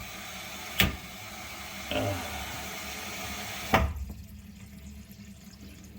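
Tap water running into a sink, with two sharp knocks, then the flow stops about four seconds in as the water is shut off.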